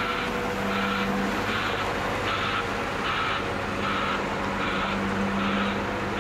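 Liebherr 922 rail wheeled excavator's diesel engine running as the machine drives, with a warning alarm beeping in a steady rhythm, about five beeps every four seconds.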